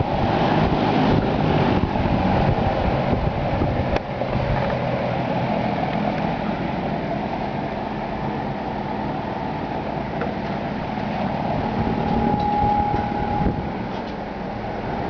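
Lakewood P-20 box fan running: a steady rush of air from the blades over the low hum of its two-speed motor.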